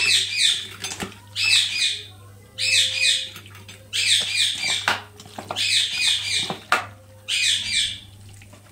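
A bird calling over and over in harsh, squawking bursts, about six of them, each a quick run of repeated high notes lasting under a second. A few brief knocks sound between the bursts.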